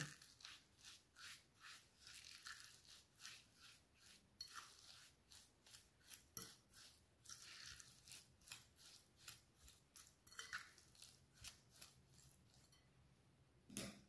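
Metal fork working mashed pumpkin and sugar in a glass bowl: faint, rhythmic scraping strokes, about two or three a second, with a slightly louder tap near the end.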